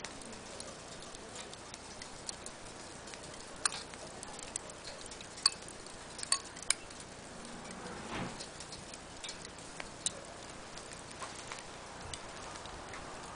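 Irregular sharp clicks and ticks, a few louder snaps among them, with a brief swish about eight seconds in.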